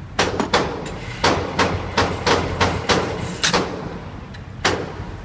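Glock 19 Gen 4 9mm pistol fired rapidly with 115-grain Blazer Brass: about ten sharp shots in quick succession over three and a half seconds, then one more shot about a second later.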